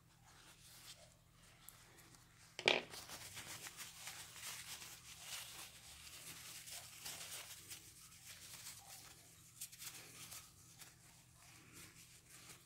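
A sharp knock about three seconds in, then paper towel rustling and crinkling in the hands, rubbed over a small ball bearing to wipe the cleaning oil off it.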